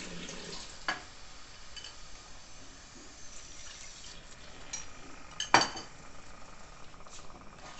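Water poured from a glass bowl into a steel pot of chicken filling, with clinks of glass and pot: a click about a second in and a louder, ringing glass clink about five and a half seconds in.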